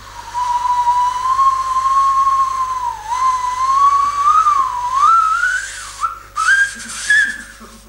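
Whistle-like tone standing in for a homemade tracking device being tried out. It holds a steady pitch that wavers and slowly climbs, then breaks into short, higher rising notes near the end.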